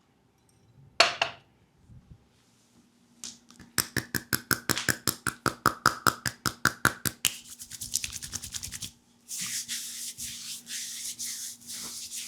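Percussive massage on a leg: a sharp smack about a second in, then a fast run of hollow-ringing strikes, about seven a second, that turns into quicker patting, followed by a stretch of hissy rubbing on the skin.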